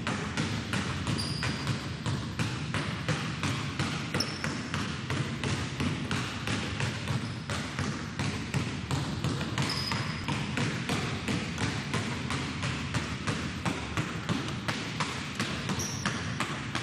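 Two basketballs dribbled alternately on a hardwood gym floor, a quick, steady run of bounces, with a few short high squeaks now and then.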